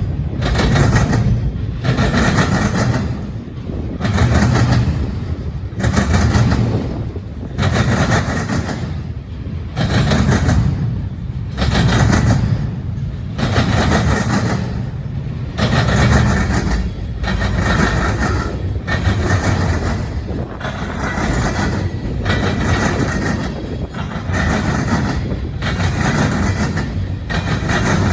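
Freight train's wheels pounding over railroad crossing diamonds, a burst of clatter about every two seconds over a steady rolling rumble.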